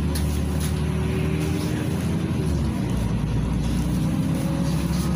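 Inside a moving LiAZ 5292.67 city bus: its YaMZ-53624 engine and ZF automatic gearbox running under way with a steady low drone, whining tones and road noise. About halfway through the whining tone steps down, then a new one slowly climbs.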